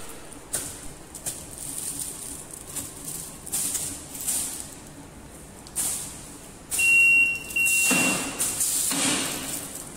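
Food metal detector conveyor line in use, with short bursts of hiss every second or so. About seven seconds in, a high electronic beep sounds twice in quick succession, over a louder hiss that lasts about two seconds.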